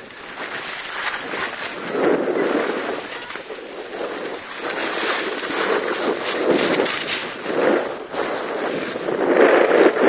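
Skis scraping across snow through a series of turns, the noise swelling with each turn and loudest near the end, with wind rushing on the microphone.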